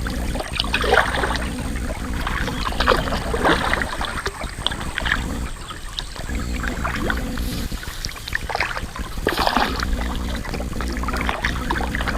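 Kayak paddle strokes splashing in the water, irregular, roughly one a second, over a steady low rumble.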